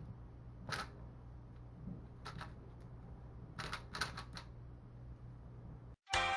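A few light, sharp plastic clicks from a mini speedcube being handled and fitted back together after tensioning, in small clusters. Music starts abruptly near the end.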